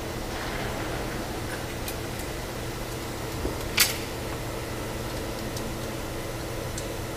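Steady hum of running machinery, with one sharp click a little past halfway and a few faint ticks.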